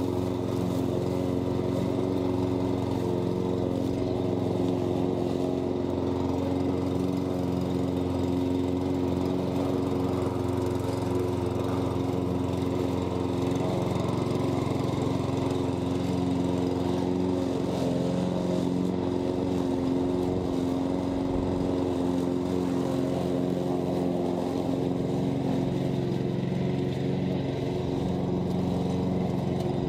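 Hyundai petrol rotary lawn mower running steadily while it is pushed across the lawn, cutting the grass.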